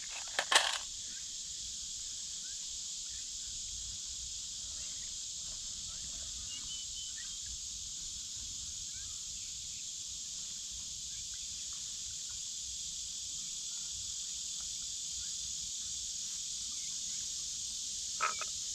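Steady chorus of insects, an even high-pitched hiss that neither rises nor falls, with a brief click near the end.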